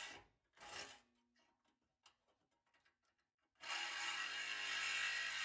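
Milwaukee Hackzall one-handed reciprocating saw cutting sheet steel: a brief burst at the start, then a pause of about three seconds with a few faint clicks, then a steady run of cutting from a little past halfway through.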